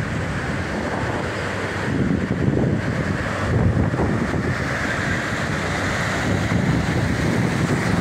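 Ocean surf: small waves breaking and washing through shallow water in a steady rush that swells a little now and then, with wind buffeting the microphone.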